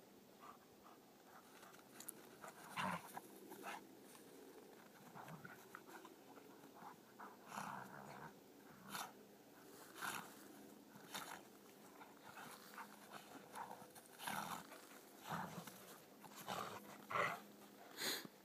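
Two Briards play-wrestling in snow: a string of short, irregular dog sounds and scuffles, loudest near the end.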